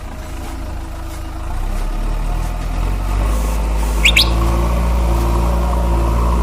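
JCB backhoe loader's diesel engine running steadily, growing louder with a fuller engine note about two seconds in. A brief high chirp of two or three quick notes about four seconds in.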